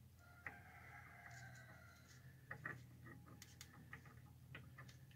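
Near silence: a low hum with a few faint clicks as a greasy differential side gear is turned by hand. A faint steady whine runs for about a second and a half near the start.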